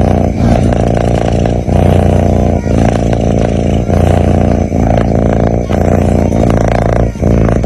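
Sleeping kitten snoring: a loud, steady, low rasping buzz that breaks off briefly about once a second with each change of breath.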